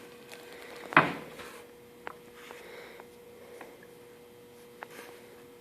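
Light handling noises of work on a glued plywood panel: one louder knock about a second in, then scattered faint clicks and taps, over a faint steady hum.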